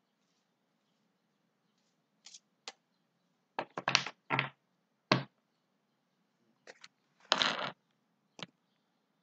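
A deck of tarot cards being shuffled and handled by hand: a run of sharp slaps and clacks starting about two seconds in, with a longer rustling burst about seven seconds in.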